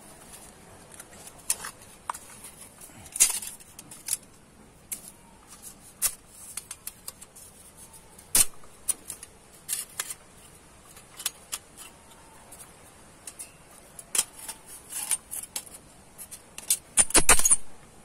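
Light metallic clinks and taps of a homemade metal wood gas stove's parts being handled and fitted together, with one sharper knock about halfway and a louder scraping clatter near the end.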